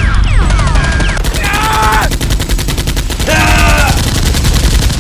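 Rapid machine-gun fire sound effect, a fast even rattle starting about a second in and stopping about two seconds later. Two short pitched cries that fall away at the end come through it.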